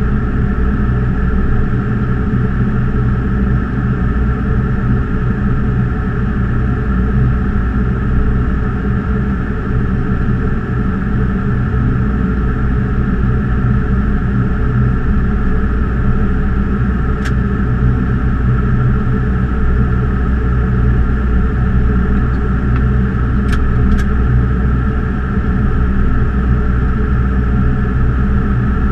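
Steady cockpit noise of an Embraer E190 airliner in descent: a constant rush of air with a deep hum and a few fixed tones, plus a few faint clicks in the latter half.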